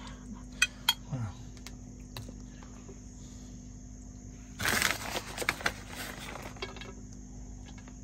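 Small clicks and taps of a spoon and fingers on a stainless steel plate as marinara is spread on griddled bread and shredded mozzarella is sprinkled on, with a short rustle about halfway through. A steady low hum runs underneath.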